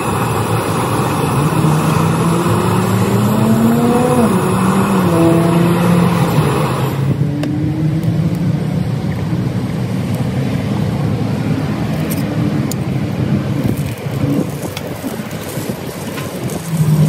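A motor engine running steadily, its pitch rising and falling about four seconds in, with a hiss behind it that cuts off about seven seconds in.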